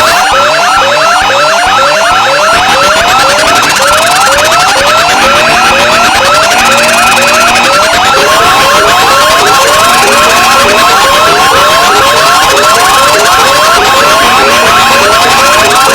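Several electronic alarm and siren tones sounding at once: a rising whoop that repeats about twice a second under a fast warbling tone. Long beeps come and go, and a steady tone joins about halfway through.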